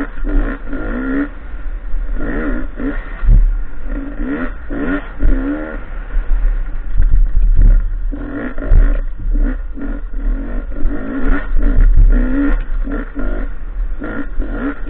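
Enduro dirt bike's engine revving up and dropping off again and again as it is ridden hard along a rough dirt trail, with a heavy wind rumble on the on-board microphone and scattered knocks from the bumps.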